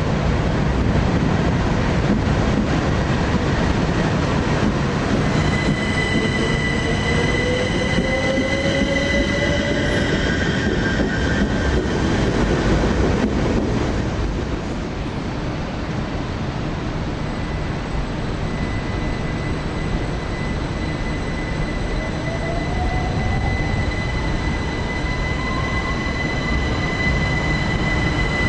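c2c Class 357 Electrostar electric multiple-unit trains moving at a station platform: a steady rumble of wheels and running gear, under an electric traction whine of steady high tones. A slowly rising whine comes about five seconds in, and again over the last six seconds as the train picks up speed.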